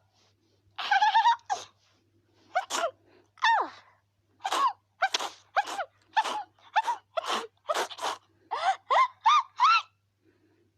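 A cartoon character's voice in a fit of short, sharp sneezes, about fifteen in a row, coming closer together from the middle on.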